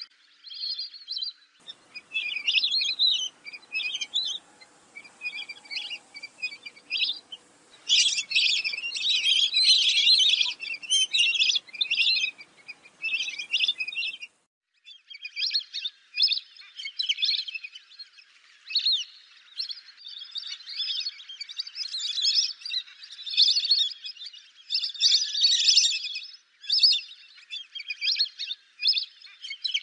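Lesser whistling ducks calling: a flock's high-pitched whistled notes in quick, overlapping series, with a brief gap about fourteen seconds in.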